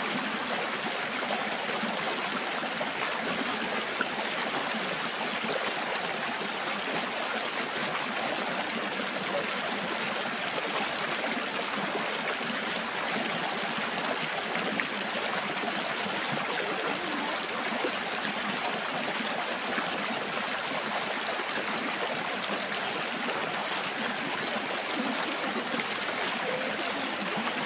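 Shallow river water rushing and burbling steadily over rocks, an even, unbroken wash.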